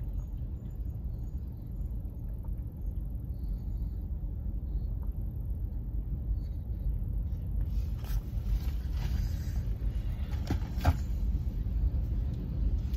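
Car engine idling, a steady low rumble heard from inside the cabin, with a few faint clicks and rustles in the second half.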